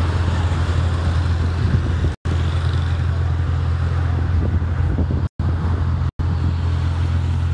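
Maserati Ghibli V6 engine idling: a steady low exhaust hum, heard at the tailpipes. The sound cuts out for an instant three times.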